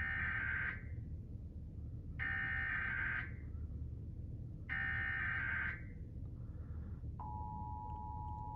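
Emergency Alert System SAME data header: three bursts of screeching digital data tones, each about a second long, marking the start of a Required Monthly Test. About seven seconds in, the steady two-tone EAS attention signal (853 and 960 Hz) starts.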